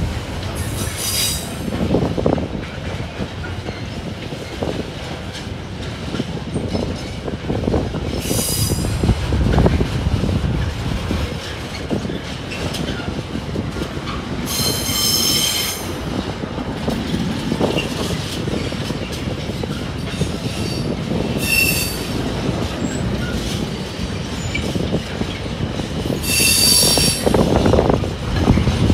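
Container freight train rolling past with a steady low rumble of wagon wheels on the rails. Five short bouts of high-pitched squealing come from the wagons, the longest about halfway through.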